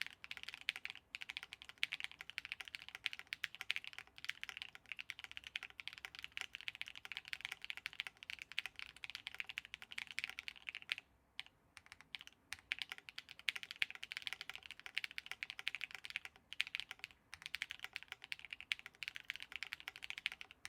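Steady fast typing on a Nunu FE Alice-layout mechanical keyboard with lubed Raed v2 switches on a full UHMWPE plate, top-mounted with no case foam. Dense runs of keystrokes with a brief pause about halfway.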